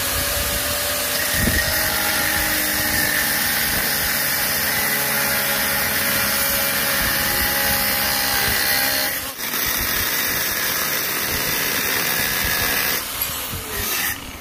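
Angle grinder running, its abrasive disc cutting through the protruding end of a steel rod and throwing sparks. The cut breaks off briefly about nine seconds in and again near the end.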